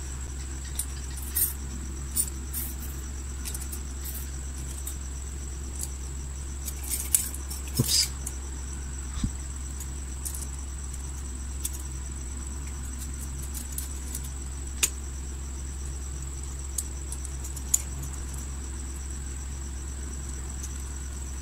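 Scattered light metallic clicks and clinks as thin nickel tabbing strips are picked up and laid onto the screw terminals of cylindrical battery cells in a plastic holder, a few at a time with gaps between. Under them runs a steady low hum with a faint high whine.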